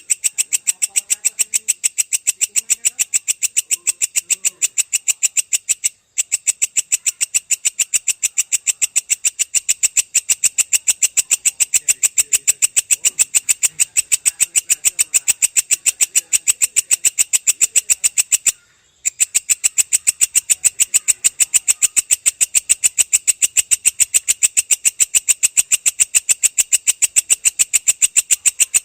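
Belalang kecek katydid calling in a long, unbroken run of rapid, evenly spaced shrill ticks, about six a second. The run breaks off twice, briefly, about six seconds in and near nineteen seconds.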